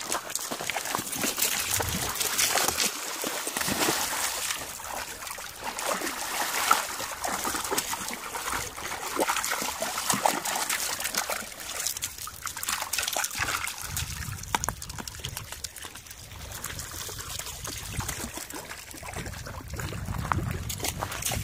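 Dogs splashing and wading in shallow lake water over a pebble shore, water sloshing and trickling around their legs and a driftwood log. The splashing is busiest in the first half; a low rumble joins it in the second half.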